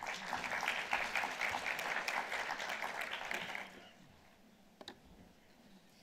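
Audience applauding for about three and a half seconds, then dying away.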